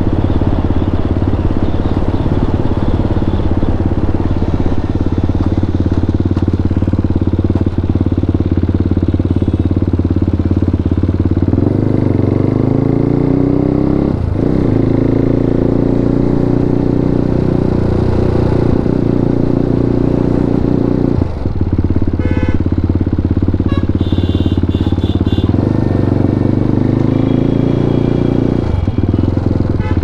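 KTM RC 390's single-cylinder engine running through a full Akrapovic exhaust system while riding. The note is steady at first, then from about twelve seconds in the revs rise again and again, with a few short breaks between the climbs.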